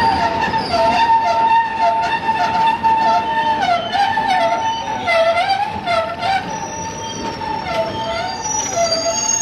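Steel train wheels squealing against the rails as a train rolls by. A steady high squeal runs throughout, with a lower squeal that wavers up and down about twice a second.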